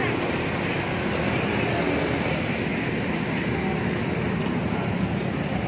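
Steady rumble of busy road traffic, with no single vehicle standing out.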